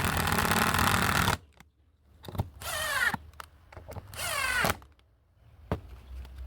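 Bosch GDR 120-Li 12 V cordless impact driver driving black gypsum screws into wood. One long burst of running and hammering lasts about the first second and a half, then come two short trigger bursts around the third and fourth-and-a-half seconds, the motor pitch sliding as each one stops. A single sharp knock follows near the end.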